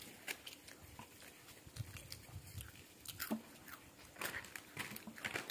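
A child chewing crisp cheese-flavoured puffed snack sticks: soft, irregular crunches and mouth clicks.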